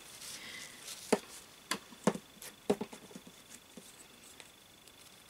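A handful of sharp taps and crinkles, spaced about half a second to a second apart, as a paper napkin dabs and rubs black paint off a foil-covered paper mache form and the form is handled.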